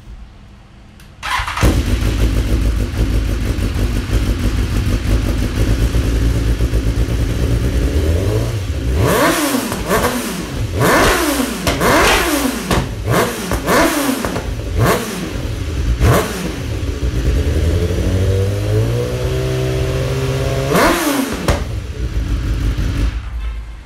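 BMW S1000R inline-four engine breathing through an Akrapovic exhaust: it starts abruptly and idles for several seconds, then is revved in a run of about eight quick throttle blips, each rising and falling sharply. After that it settles, rises slowly, takes one more blip near the end, and cuts off suddenly.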